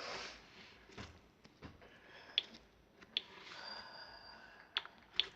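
Slime being handled and squeezed, with a soft squishing stretch and several sharp little pops and clicks from trapped air, plus a breath near the start.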